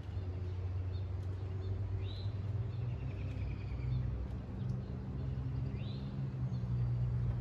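Birds chirping outdoors: short rising chirps about two seconds and six seconds in, and a brief trill around three seconds, over a steady low hum.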